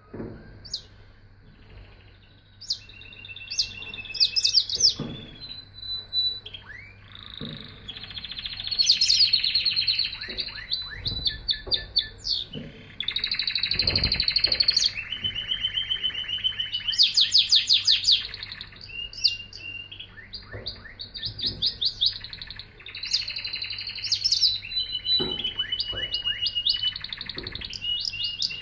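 Domestic canary singing a long, nearly continuous song of rapid trills, fast repeated notes and held high whistles.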